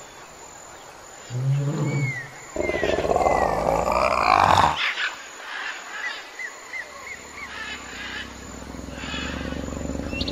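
Big cat growling and roaring: a short low growl, then a longer, louder roar that rises in pitch about two and a half seconds in, followed by a lower, steadier rumble. Short high chirps sound in the background.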